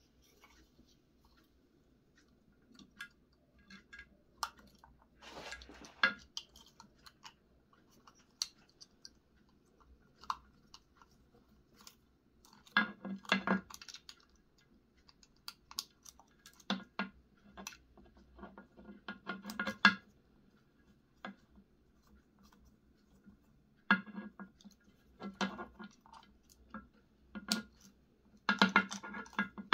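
Gloved hands handling a Xiaomi M365 electric scooter controller board and its wiring over the scooter's deck: irregular clicks, taps and rustling in short clusters, with quiet gaps between them.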